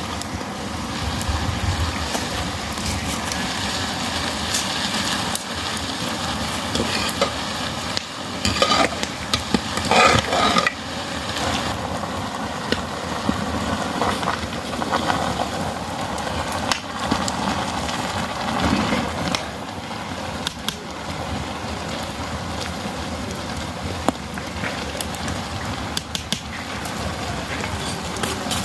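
Food frying and sizzling in a cooking pan as it is stirred, with clicks and scrapes of the utensil against the pan, loudest about eight to eleven seconds in.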